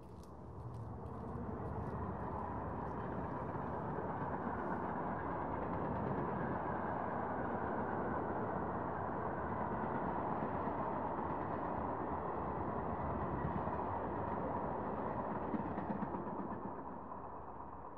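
A steady rushing, rumbling noise with no clear pitch swells in over about two seconds, holds evenly, and fades away near the end.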